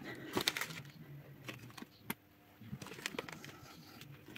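Potting soil spooned in around a seedling in a plastic pot: soft scraping and rustling of soil, with scattered light clicks of a metal spoon against the pot.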